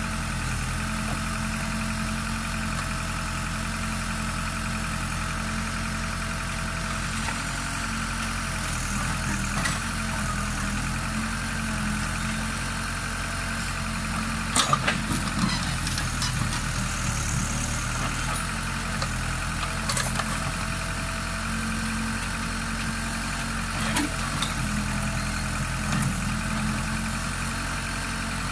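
Case backhoe loader's diesel engine running steadily while digging, with a few sharp knocks about halfway through and again later on.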